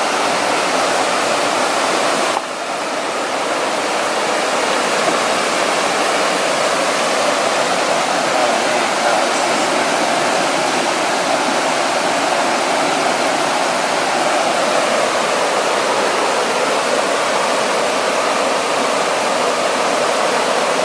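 Loud, steady rush of fast-flowing mountain water, loud enough that campers judge it too loud to sleep beside. The level dips briefly about two and a half seconds in.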